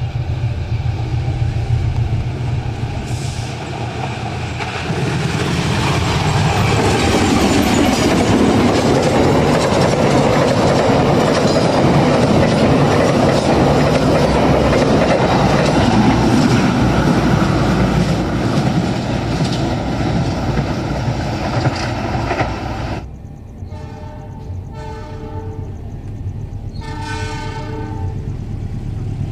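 KAI diesel-electric locomotive and its passenger coaches passing at speed: the engine rumbles as it approaches, then the coaches run past with a loud, steady rush and wheel clatter. After a sudden break near the end, a locomotive horn sounds in a few blasts.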